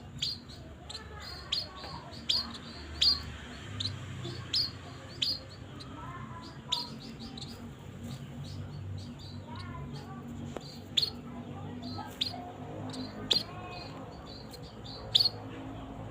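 Small birds chirping: short, sharp, high notes that drop in pitch, coming irregularly, a few of them markedly louder than the rest.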